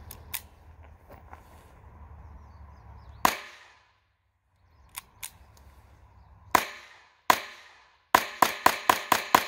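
A .22 LR Ruger semi-automatic pistol firing CCI copper-plated hollow points: single shots spaced a few seconds apart, then a quick string of about seven shots near the end. It cycles with no stoppage heard.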